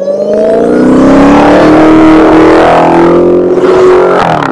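2020 Dodge Charger SRT Hellcat Widebody's supercharged V8 accelerating hard, loud from the very start, its note climbing steadily in pitch. Near the end the pitch dips briefly.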